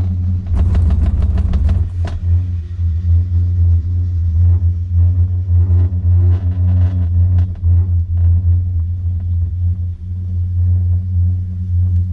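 A hooded high-speed pair chairlift riding up the line, heard from inside the hood, with a steady low rumble throughout. About half a second in there is a rapid run of clicks lasting over a second as the chair's grip passes over the tower's sheave rollers, then a few scattered clicks and rattles.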